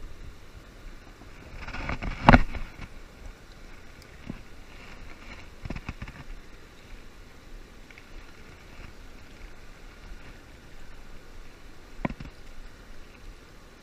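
Steady rushing of a high, fast river pouring over a low dam, with some wind on the microphone. A loud, brief thump comes about two seconds in, and fainter knocks follow near the middle and near the end.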